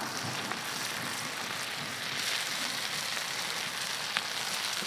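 Chicken keema patties shallow-frying in hot oil on a large flat iron pan over a wood fire: steady sizzling, with a single sharp pop about four seconds in.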